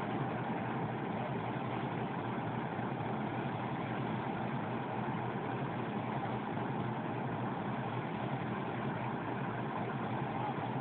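Diesel locomotive engine idling steadily.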